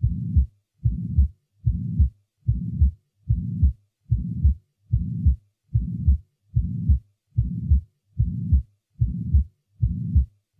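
Heart sounds with a murmur, at a steady rate of about 75 beats a minute. In each beat a sharp heart sound is followed by a steady low murmur lasting about half a second, which ends on a second sharp heart sound; a short silence follows before the next beat.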